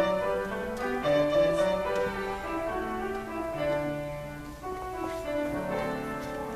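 Solo piano played from sheet music: a recital piece of several notes sounding together, with a melody moving over lower held notes.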